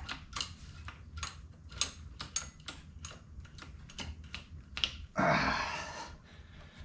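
Irregular sharp clicks and light knocks of a motorcycle's twin carburettor assembly and its cables being handled and worked into the intake boots, with a louder rubbing scrape lasting about a second near the end.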